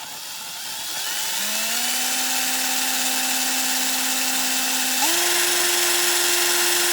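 Small power drill with a 1.5 mm bit drilling out the rivets of a die-cast toy car. The motor whine rises as it spins up, holds steady, then steps up to a higher pitch about five seconds in.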